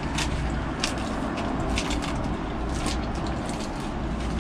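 Crisp lettuce leaves being pulled and torn off a head, giving a few short crackles, over a steady low outdoor rumble.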